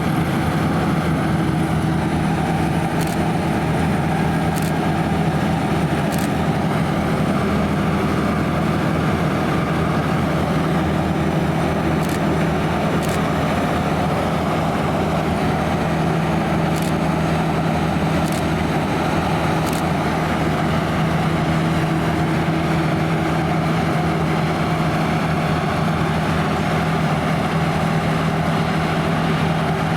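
Claas Lexion 580 Terra-Trac combine harvester running steadily under load, its engine and machinery giving a constant drone, with a few faint, brief high clicks now and then.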